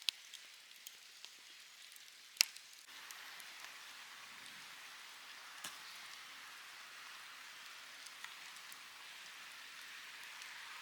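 Wood campfire crackling, with scattered sharp pops, the loudest about two and a half seconds in, over a steady hiss of falling rain that grows louder about three seconds in.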